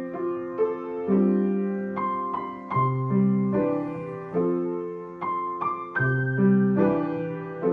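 Background piano music: a slow, gentle melody of single struck notes over chords, each note dying away.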